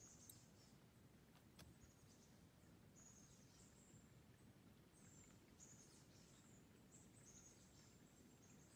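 Near silence: faint forest ambience with thin, very high bird calls now and then.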